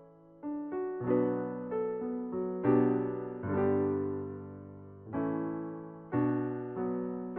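Slow background piano music: soft notes and chords struck one after another, each left to ring and fade.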